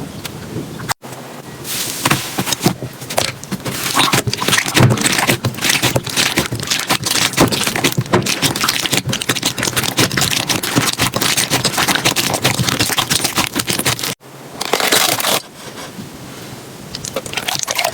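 Slime being squeezed, poked and stretched by hand, giving dense irregular crackling and popping. It breaks off abruptly twice, about a second in and again near the end, as one clip gives way to the next.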